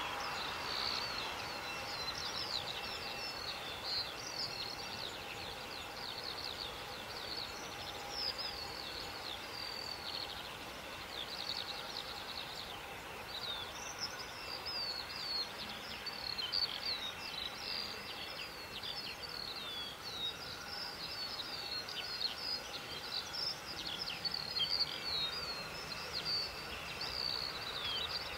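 Small birds singing and chirping continuously: many quick, high, downward-sweeping notes, over a faint steady background hum.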